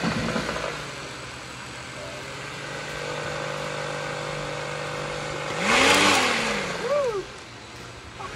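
Small electric motor of a 3D-printed RC lawn mower running with a steady hum, then revving up and back down twice, with a loud rush of noise about six seconds in.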